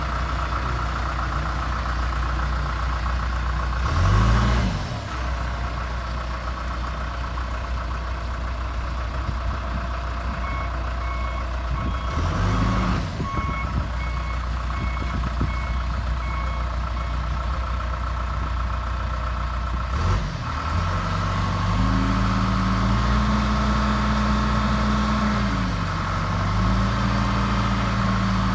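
John Deere 310G backhoe loader's four-cylinder diesel engine running, briefly revving up and dropping back twice. About three-quarters of the way through it settles at higher revs, its pitch dipping and rising. A faint regular beeping sounds for several seconds in the middle.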